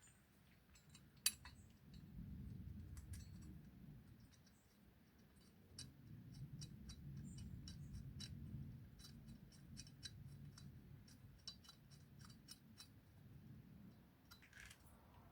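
Faint, scattered metallic clicks and taps of hand tools and bolts being handled while fitting a motorcycle U-lock mounting bracket to the frame, with one sharper click about a second in.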